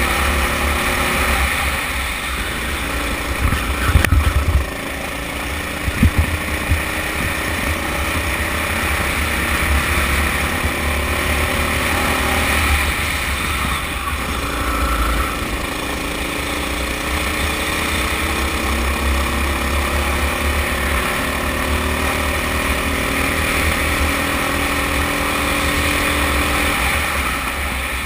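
Honda-engined Sodi kart running at speed, recorded onboard. The engine note climbs slowly as it accelerates and drops back into the corners, several times over, under heavy low rumble and wind on the microphone. There are a couple of sharp knocks about four and six seconds in.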